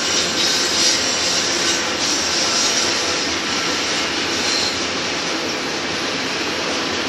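Double-stack container cars of a BNSF freight train rolling past, a steady noise of steel wheels running on the rails.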